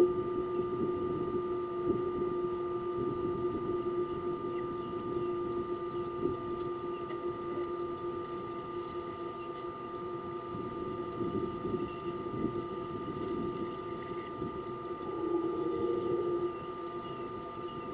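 A steady hum holding several fixed pitches over a faint wash of outdoor noise, with a brief louder whirr about fifteen seconds in.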